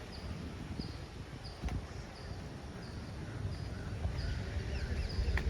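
A bird calling over and over in short high chirps, about two a second, over a low rumble of outdoor noise with a couple of sharp clicks.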